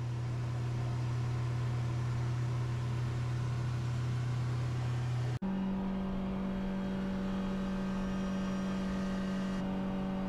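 Boat engine running steadily under way, heard from inside the cabin: a constant hum that, after a short break about halfway through, carries on at a higher steady pitch.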